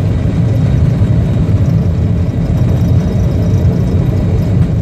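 Cockpit noise of a CRJ-200 on its takeoff roll: the twin rear-mounted turbofans at takeoff power, heard as a loud, steady deep rumble with faint steady high tones above it.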